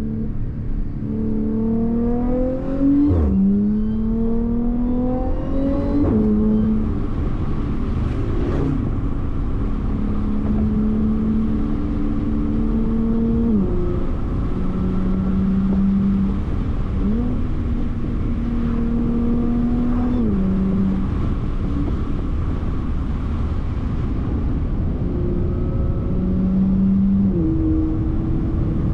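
Supercharged Audi V6 engine under acceleration: its note climbs and drops back at three upshifts in the first nine seconds or so. It then settles into cruising, with a few smaller pitch steps at later gear changes, over a steady rumble of road noise.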